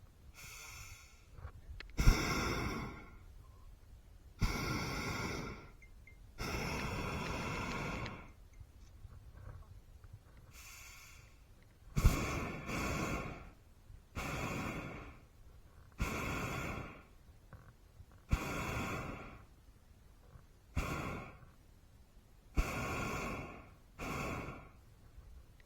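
Hot air balloon propane burner fired in about eleven short blasts, each a loud rushing roar lasting half a second to a second and a half, several opening with a sharp click as the valve opens.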